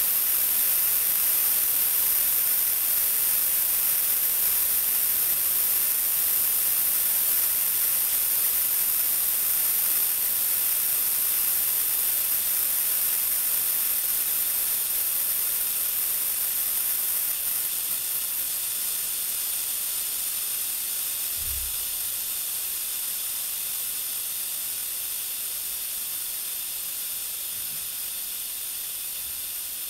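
Compressed air hissing steadily out of a home-built airbrush compressor's air tank, slowly getting quieter as the tank pressure falls. The tank is being bled down so that the pressure switch will restart the compressor.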